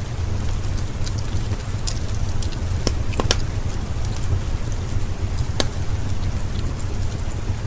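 Steady rain with a deep low rumble under it, mixed with a wood fire crackling, its sharp pops scattered irregularly, a few louder ones around the middle.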